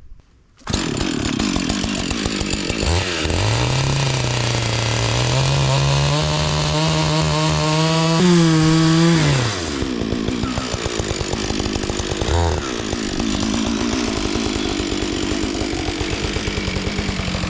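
Chainsaw running and cutting through a log, starting about a second in. It runs loudest and at its highest pitch from about three to nearly ten seconds in, then drops back and carries on at a lower level.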